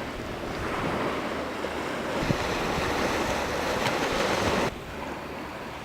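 Sea surf: a steady rush of waves washing in, with wind on the microphone. It cuts off abruptly near the end to a quieter rush.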